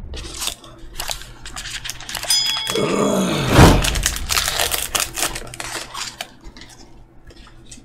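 Trading cards and foil booster-pack wrappers being handled: a dense run of crinkles, crackles and small taps, busiest a few seconds in, with a short high squeak just after two seconds.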